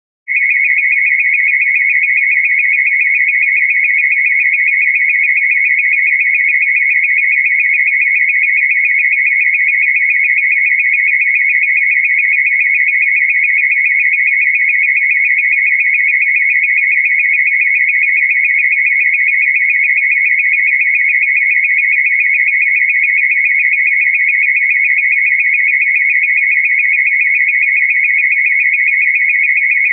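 A loud, steady electronic warbling tone, high and rapidly pulsing at one unchanging pitch, held for nearly thirty seconds and cut off abruptly at the end: a science-fiction sound effect.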